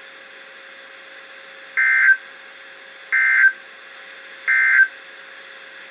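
NOAA Weather Radio EAS end-of-message data bursts: three short, harsh digital screeches, evenly spaced about a second and a half apart, signalling the end of the warning broadcast. A faint steady hum from the radio receiver is heard between them.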